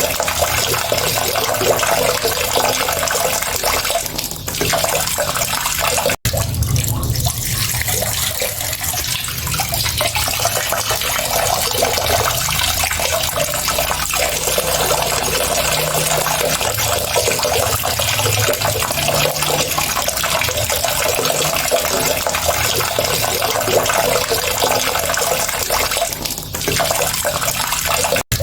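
Water running steadily with an even, splashing rush. It breaks off for an instant about six seconds in and again near the end.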